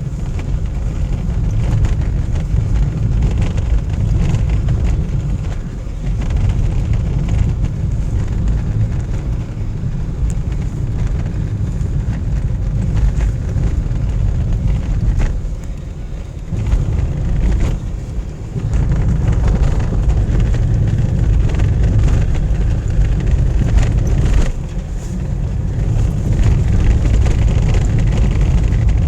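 A car driving, heard from inside it: a steady low rumble of engine and road noise that dips briefly a few times.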